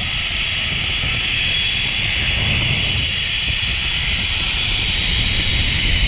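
Zipline trolley pulleys running fast along a steel cable: a steady, high, hissing whir, with wind rushing over the microphone beneath it.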